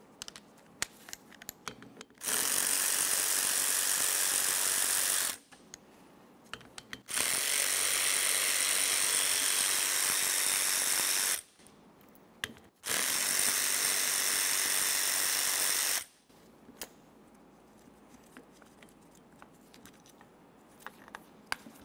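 Cordless electric ratchet running steadily in three spells of about three to four seconds each, backing out the mounting bolts of a car's windshield wiper transmission. Small clicks of tool and metal parts being handled come between the spells.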